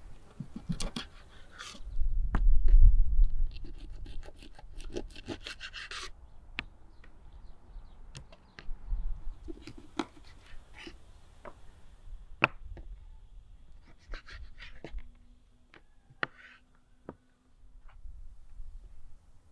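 Kitchen knife cutting raw chicken on a wooden cutting board: irregular sharp taps of the blade on the board, with a quick run of taps a few seconds in. A low rumble about two seconds in is the loudest moment.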